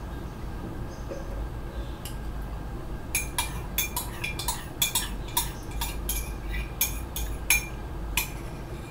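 Metal spoon stirring in a ceramic mug, clinking against its side in a quick run of rings, about three a second, starting about three seconds in.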